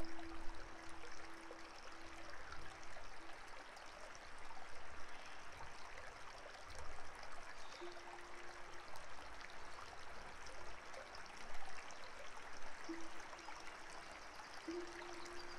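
Stream water rushing and splashing steadily. A single held tone sounds over it a few times: briefly at the start, about eight seconds in, and again near the end.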